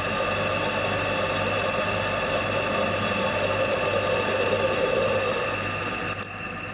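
Milling machine running steadily while drilling, a constant motor and spindle hum with several steady tones. About six seconds in the sound changes abruptly.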